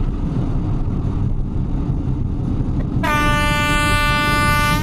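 Train running at speed with a steady low rumble; about three seconds in, the horn sounds one long, multi-toned blast.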